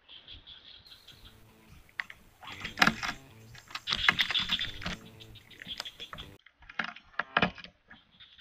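Spinning reel and fishing rod being handled: irregular clicking and rattling, loudest about three to five seconds in, with a few separate clicks near the end.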